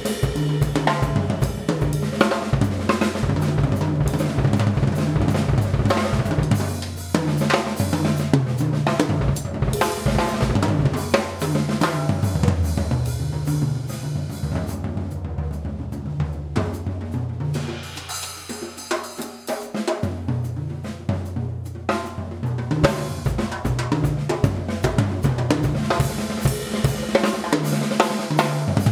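Drum kit solo on a Pearl kit: busy funk patterns on snare, bass drum, hi-hat and cymbals. A deep line of short low notes moves underneath. The playing drops to a quieter, sparser stretch about two-thirds of the way through, then builds again.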